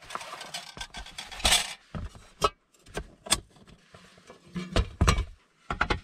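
Rustling, then a series of sharp clicks and knocks as a small folding metal stand is opened out and set down and a wooden cutting board is laid on it.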